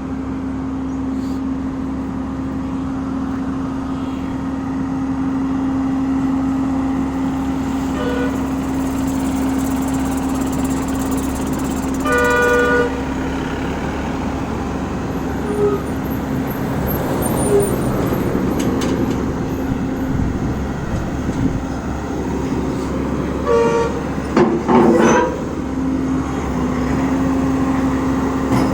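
Komatsu excavator's diesel engine running steadily at the bucket-raising work, with a short vehicle horn toot about twelve seconds in and a few brief sounds near the end.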